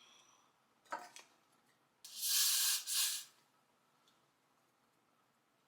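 Aerosol spray hissing in two quick back-to-back bursts about two seconds in, the kind of hold spray used to lay down a lifting wig lace. A brief rustle comes just before, about a second in.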